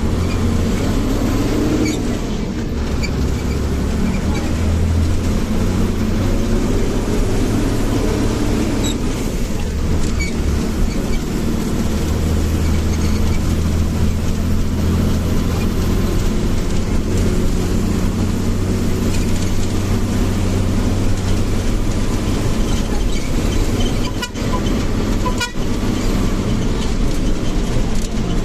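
Bus engine running with a steady low rumble, and the bus's horn tooting.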